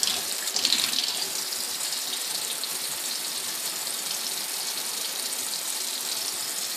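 Water running steadily from a tap into a sink, an even hiss with a few louder splashes in the first second.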